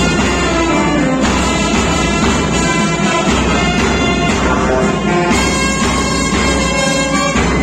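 Police brass band playing a tune live, brass and saxophones together in a loud, steady ensemble.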